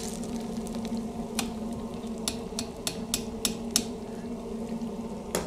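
Hot oil frying fish and fries in a deep fryer over a steady low hum, while a metal slotted spoon stirring the fish clicks against the fryer basket: scattered sharp taps, with a quick even run of about six in the middle.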